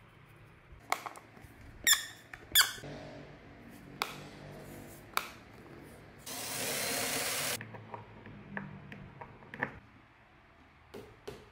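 IKEA Lack coffee table legs being screwed by hand onto their dowel screws and knocked against the tabletop: a series of knocks and clicks, the two loudest about two seconds in with a squeak, and a scraping rub lasting about a second midway.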